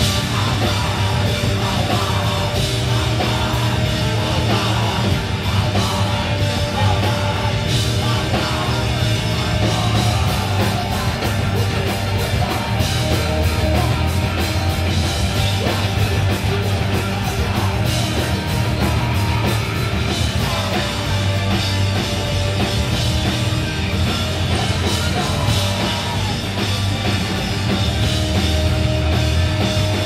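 Hardcore punk band playing live and loud: distorted electric guitar, bass and a drum kit driving with dense, rapid cymbal and drum hits.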